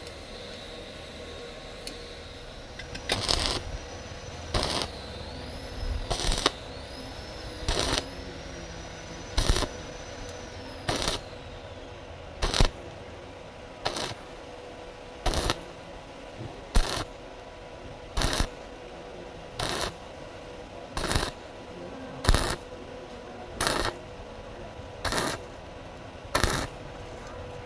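Stick-welding arc struck again and again in short bursts, one brief crackle about every second and a half. This on-off stitching keeps thin square tube from burning through.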